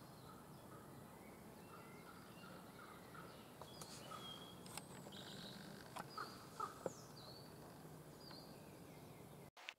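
Faint woodland ambience with small birds calling in short chirps and whistled notes, and a few soft clicks about six to seven seconds in.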